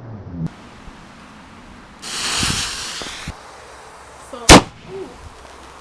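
Fireworks: a rushing hiss for about a second, then a single loud, sharp bang near the end.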